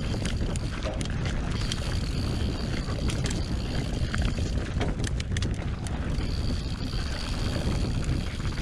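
Mountain bike riding fast downhill on a dirt trail: wind rushing over the camera microphone and tyres rolling over the ground, with a constant rattle of clicks from the chain and bike.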